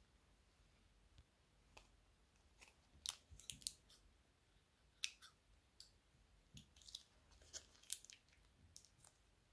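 Thin plastic bags crinkling and crackling in the fingers as they are squeezed and emptied, in scattered sharp clicks and crackles, faint overall.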